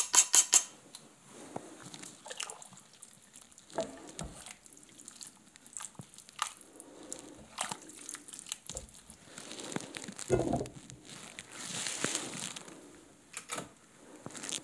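Kitchen handling at a stockpot of borscht: the last fast clicks of a pepper mill grinding at the very start, then shredded red cabbage scraped off a wooden cutting board into the soup with wet, crunchy plops, a spatula stirring against the steel pot, and a few sharp clinks near the end as the glass lid goes on.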